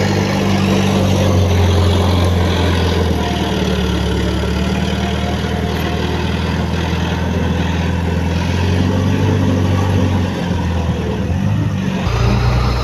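Heavy diesel engine of earthmoving machinery running steadily, its note shifting near the end.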